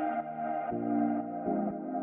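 Ambient background music: soft held chords that change about every second.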